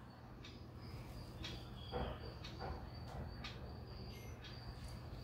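Faint soft clicks and taps, roughly two a second, from a wooden spatula stirring thick halwa in a steel kadai. The strongest click comes about two seconds in, and a thin high tone comes and goes behind them.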